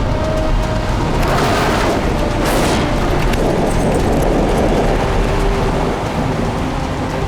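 Heavy diesel truck engines running hard under load as the tow truck pulls the loaded semi, a deep steady rumble with a rushing hiss from about one to three seconds in.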